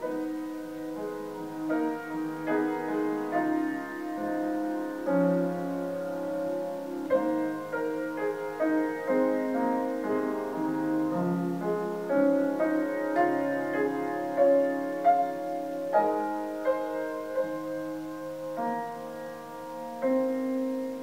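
Background music: slow, gentle solo piano playing sustained chords and a simple melody.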